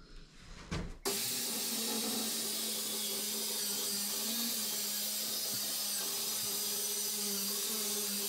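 Handheld circular saw starting about a second in and running steadily as it cuts along the edge of a wooden worktop, a constant hum under an even hiss.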